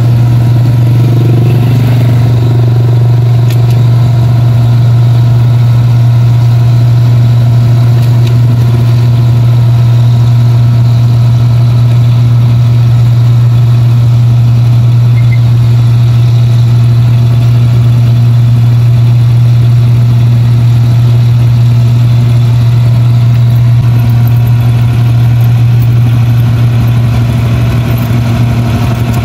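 Rice combine harvester's engine running at a steady, deep drone as the machine harvests a paddy field.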